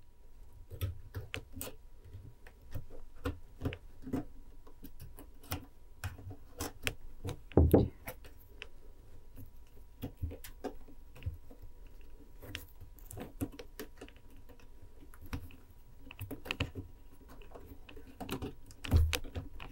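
Thin craft wire and flat-nose pliers clicking and tapping irregularly as the wire is worked through narrow gaps and pressed into place on a wire frame. Louder knocks come about seven and a half seconds in and again near the end.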